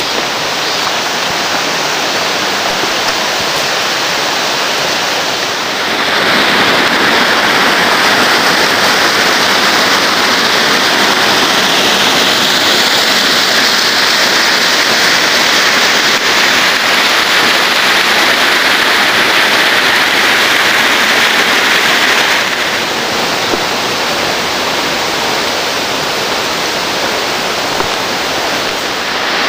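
Mountain stream cascading over rocks, a steady rush of whitewater that grows louder about six seconds in and drops back to a softer rush after about twenty-two seconds.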